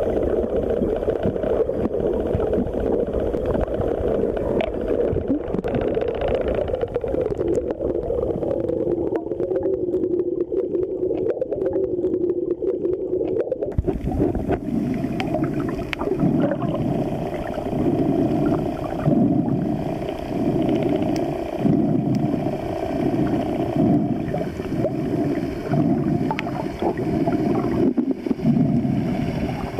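Muffled underwater sound picked up by a submerged camera: a steady low drone at first, then a series of low pulses about once a second from about halfway.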